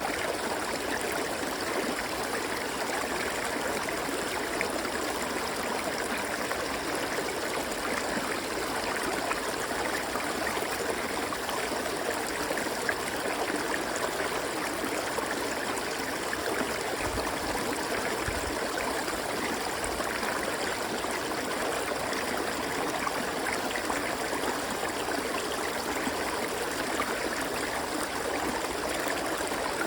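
River water flowing and rushing over stones in a steady, even stream.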